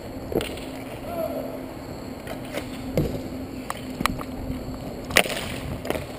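Inline hockey skate wheels rolling on an outdoor court surface, a steady rumble, broken by sharp clacks of sticks and puck, the loudest about five seconds in. A player calls out briefly near the start.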